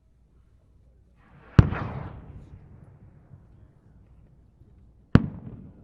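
Two loud firework bangs about three and a half seconds apart, each trailing off in a rumbling echo; a short rising hiss leads into the first.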